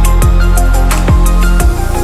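Electronic background music with a deep bass line and kick drum hits that drop in pitch, over crisp hi-hat ticks and steady synth notes.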